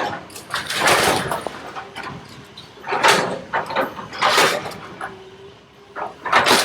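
Excavator demolishing a house: wood and debris crunching and crashing, about four loud crashes with lighter cracking between them, over a faint machine hum.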